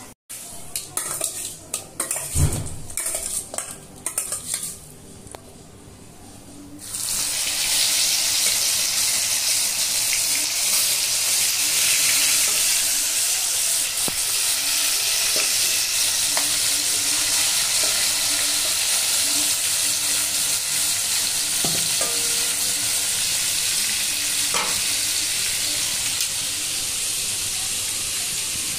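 A few scattered knocks and clatter, then about seven seconds in chicken pieces start sizzling loudly and steadily in hot oil in a frying pan.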